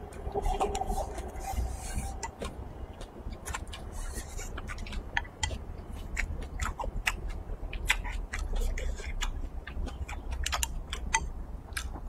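Close-miked eating of braised pork and rice: chewing with many sharp, wet mouth clicks and smacks, over a steady low hum.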